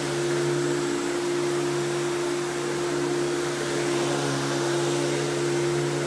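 Simplicity 7350 upright vacuum's 12-amp two-stage motor running steadily while vacuuming carpet: a constant motor hum over a rush of air, with slight rises and falls in level.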